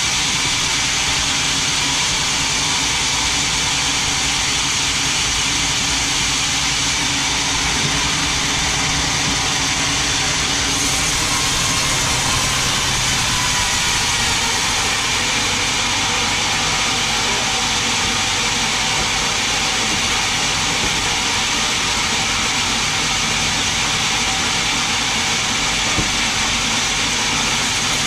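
Large band sawmill running steadily, its blade cutting lengthwise through a big mahogany log to slice off boards; a constant loud machine noise with little change.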